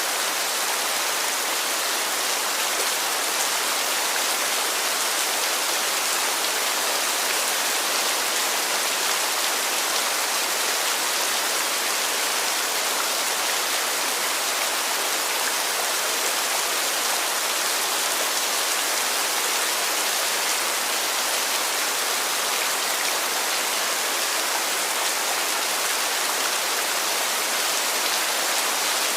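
Heavy rain falling in a dense, steady hiss that never rises or falls.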